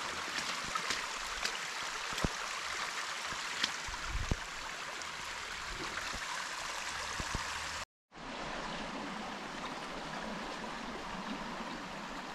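Steady rushing of a small forest stream, with a few faint ticks in the first half. The sound cuts out for a moment about eight seconds in, then the rushing resumes.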